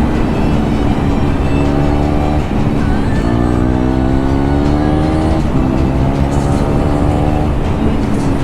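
KTM Duke 390's single-cylinder engine, with the exhaust's dB killer removed, pulling through the gears under acceleration. The pitch climbs in each gear and drops at upshifts about two and a half and five and a half seconds in, then sinks slightly near the end as the throttle eases.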